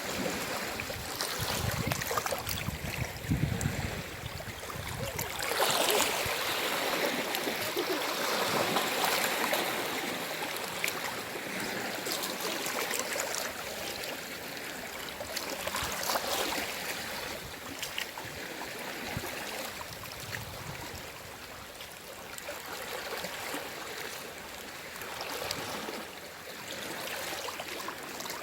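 Gentle sea waves washing ashore, a steady hiss of water that swells and ebbs every few seconds, with the biggest wash about six seconds in. A low rumble sits under the water sound in the first few seconds.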